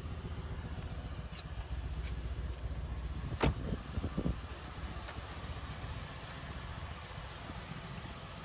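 Mercedes-AMG C63 S's 4-litre twin-turbo V8 idling steadily with an even low pulse. A sharp click comes about three and a half seconds in, then two short knocks.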